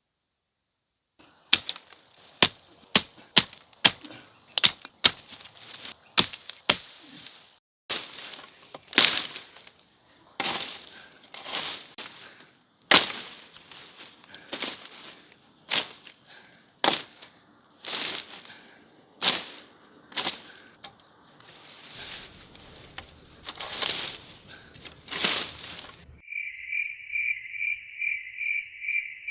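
A run of sharp, irregular knocks and cracks. They are quick and light at first, then heavier strikes about once a second, the sound of hand work such as chopping or breaking. Near the end the strikes stop suddenly and a cricket's steady pulsing chirp takes over, about four pulses a second.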